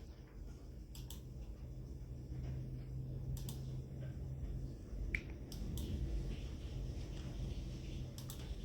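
A few scattered sharp clicks, about five in all, over a low steady hum.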